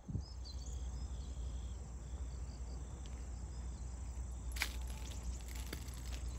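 Insects chirping in tall autumn grass: a steady high trill with short repeated chirps, over a steady low rumble. About two-thirds of the way through comes a brief cluster of sharp clicks.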